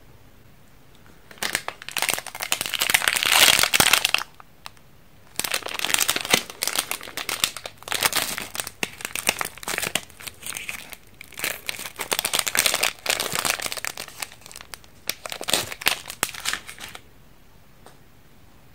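Shiny plastic candy wrapper crinkling as it is torn open and peeled off a stamp-shaped candy by hand, in irregular bursts with a brief pause about four seconds in.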